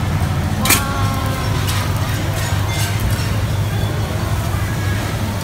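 A steady low rumble from the busy stall kitchen. About a second in, a metal utensil strikes an aluminium pot with a ringing clink, followed by a few fainter clinks.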